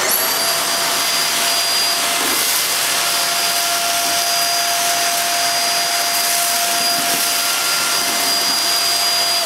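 Bissell Featherweight Pro 2-in-1 stick vacuum switched on, its motor whine rising for a moment and then holding steady at one pitch over a rushing noise. It is being run through scattered rolled oats, rice and flour.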